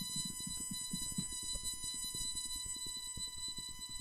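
Faint, indistinct low voices and room noise in a council chamber. Under them runs a steady, high-pitched electronic whine with a ladder of overtones.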